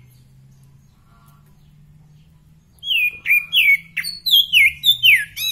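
Caged oriental magpie-robin (kacer) singing. From about halfway through it gives a quick run of clear, loud whistled notes, about three a second, each sliding down in pitch; the owner calls the song crystal-clear.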